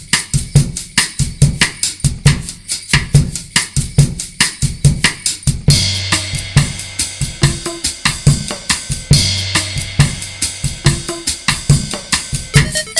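Background music with a drum kit playing a steady, fast beat over a low bass line; the cymbals get busier about six seconds in.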